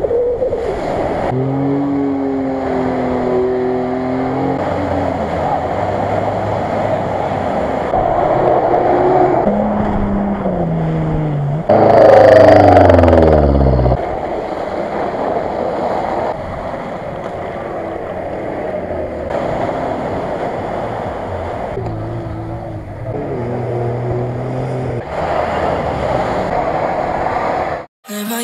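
Off-road 4x4 engines revving hard as the vehicles churn through mud and muddy water. The loudest moment is about twelve seconds in, where an engine revs high and then drops in pitch. The sound cuts out briefly near the end.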